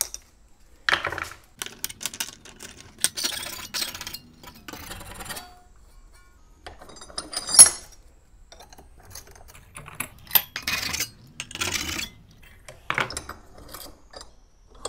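Metal clinking, rattling and scraping as a potato masher's wire handle is bent back and forth in a steel bench vise to free its perforated metal head. A sharp ringing clink comes about seven and a half seconds in, with scattered knocks around it.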